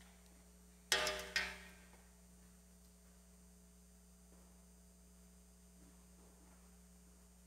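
A single short musical tone about a second in that fades out within a second. After it comes near silence with a faint steady hum.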